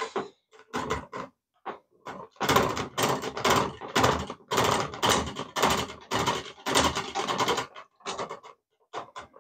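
Hard plastic clicking and clattering as the toy paddle boat and its 3D-printed paddle wheel are handled. There are a few separate clicks at first, then a dense run of rapid clicks lasting about five seconds, then a few more clicks near the end.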